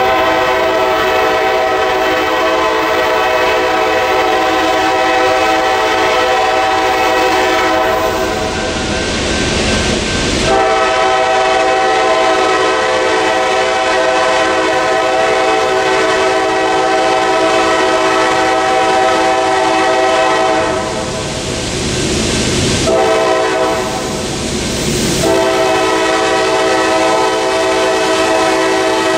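Air horn of an approaching Norfolk Southern GE AC44C6M freight locomotive, blowing a chord in long blasts with short breaks between them: the warning sequence for the grade crossing. A rushing rumble from the oncoming train fills the breaks.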